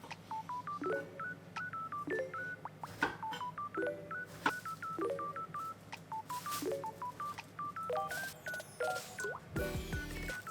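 Background music of short, beep-like plucked notes in a bouncy repeating pattern over a steady low drone, with a heavier bass coming in near the end.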